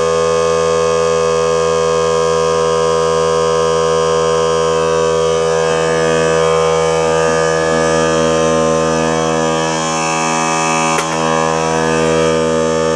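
Small portable air compressor running steadily, its electric motor and piston pump pumping up the tank, with one brief click about eleven seconds in.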